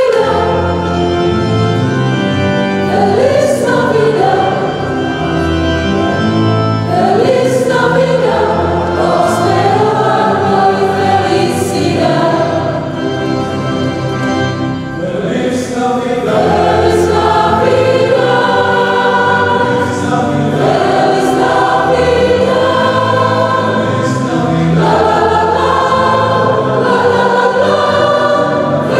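Mixed parish choir singing a sacred song in unison and harmony, accompanied by a Yamaha Stagea electronic organ holding steady bass notes under the voices.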